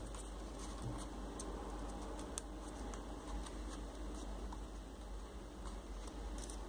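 Faint paper rustling with small irregular clicks as folded paper triangle units are pushed into the pockets of a 3D origami model.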